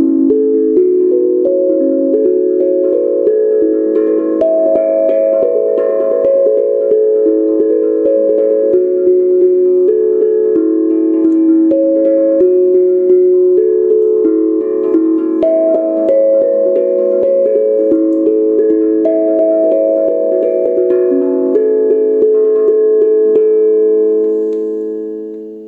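Steel tongue drum in A major pentatonic, tuned to A = 432 Hz, played with felt-tipped mallets: a quick, steady flow of overlapping ringing notes. Near the end the playing stops and the last notes ring out and fade.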